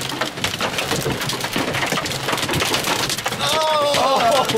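Large hail pelting a vehicle's windshield and body, heard from inside the cabin as a dense, continuous clatter of impacts mixed with heavy rain. About three seconds in a wavering pitched sound rises over the clatter.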